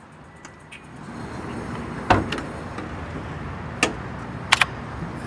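Van rear door being handled: a sharp latch clack with a low thump about two seconds in, then a single click and a quick double click near the end, over a steady background hum.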